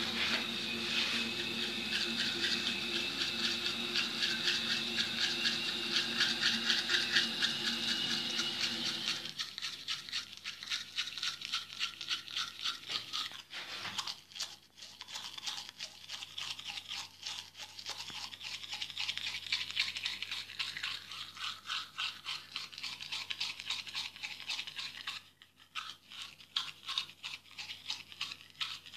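Manual toothbrush scrubbing back and forth against teeth in quick, rapid strokes. A steady hum with several held tones runs underneath for the first nine seconds or so, then stops, and the brushing pauses briefly near the end.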